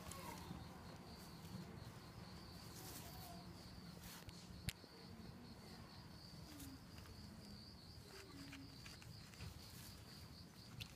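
Near-silent outdoor ambience with a faint, steady, high insect trill throughout, and one sharp click about halfway through.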